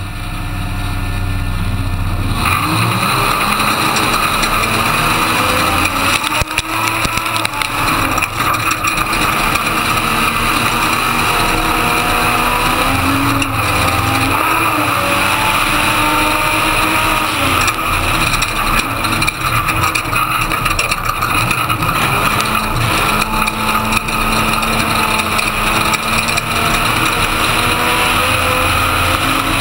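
Ford Ranger desert race truck at speed, heard on board. The engine's pitch rises and falls as it accelerates and shifts, over steady road and wind noise, with scattered knocks and rattles from the truck. The noise swells about two seconds in.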